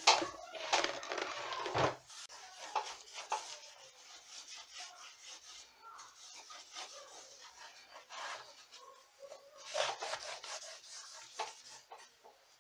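Brushing and rubbing on a guitar amplifier's textured vinyl covering and grille as its cabinet is cleaned: irregular scrubbing strokes, heaviest in the first two seconds and again about ten seconds in, fainter in between.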